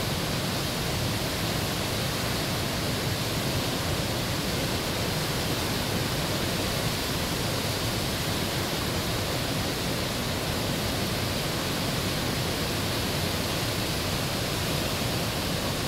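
Steady rush of whitewater: the Potomac River's Great Falls pouring through rocky channels and rapids, an even, unbroken noise across all pitches.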